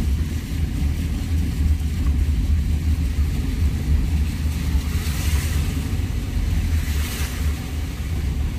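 Car engine and road rumble heard inside the cabin while driving slowly through floodwater, with two brief swishes of splashing water about five and seven seconds in.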